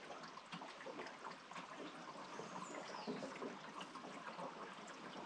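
Faint river ambience: water trickling and lapping, with a few faint high chirps about halfway through.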